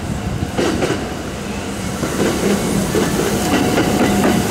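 Kintetsu limited express electric train approaching and running past, its wheels clacking over the rail joints and points, growing louder from about two seconds in.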